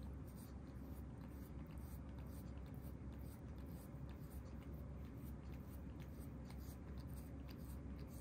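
Soft, scratchy rasping of a cat's tongue grooming another cat's fur, mixed with a hand rubbing fur, in many small irregular strokes over a low steady rumble.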